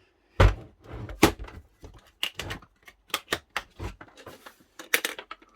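A series of irregular clicks and knocks as tools and their storage box are handled and put away, some knocks with a dull low thump.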